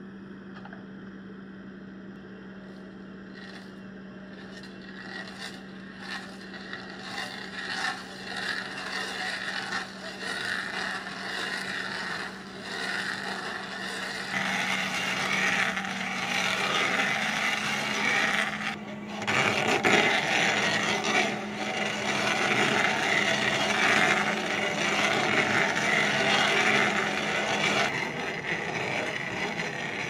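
A backhoe loader's engine hums at a steady pitch while a Dipperfox SC600 stump crusher on its arm cracks and scrapes through a tree stump. The wood-breaking noise builds from about five seconds in and is loudest through the second half. The engine hum drops away near the end.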